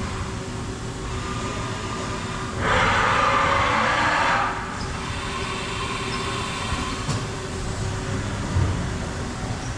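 Steady low hum of a machine shop, with a loud rushing hiss lasting about two seconds, a few seconds in.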